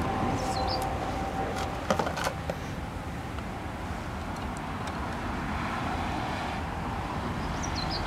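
Outdoor background of a steady low rumble, with a few small clicks about two seconds in from hand tools working at an aluminium antenna tube.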